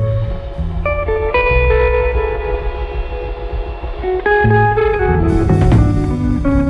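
Instrumental background music led by guitar, playing a melody of held notes.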